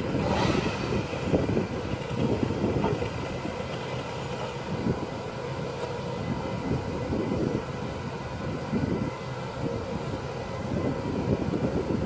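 Engine of a grapple-crane truck running steadily while its hydraulic knuckle-boom crane swings and lowers the grapple: a continuous rumble with a faint steady whine over it. A brief hiss about half a second in.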